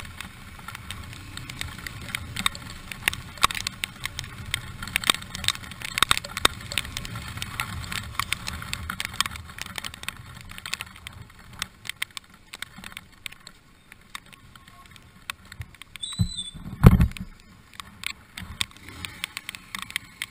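Honda motorcycle riding in the rain: a low engine and road rumble with many raindrops ticking against the camera. The rumble fades about two-thirds of the way through as the bike slows, and a single loud thump comes near the end.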